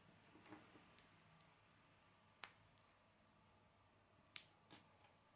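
Plastic K'nex rods and connectors clicking as they are pressed together by hand: one sharp click about halfway through, then two more close together near the end, with softer handling noise at the start.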